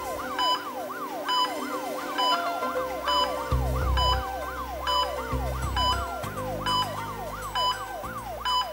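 Emergency siren sound effect: a fast wailing tone sweeping up and down about three times a second, with a pulsing beep repeating about twice a second over it. Low rumbling tones join underneath about halfway through.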